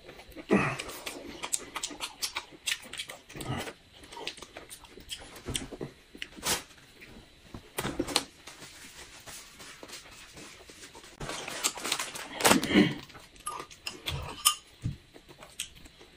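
Close-miked eating sounds: chewing and lip smacks with irregular sharp clicks, and a busier stretch about twelve seconds in.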